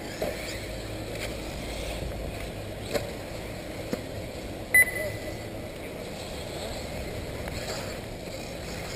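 A short, high electronic beep about five seconds in, over a steady low background rumble.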